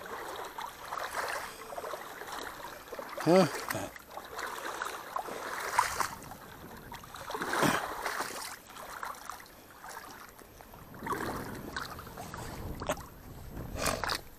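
Irregular sloshing and splashing of water as someone moves through it, with a brief pitched squeak about three and a half seconds in.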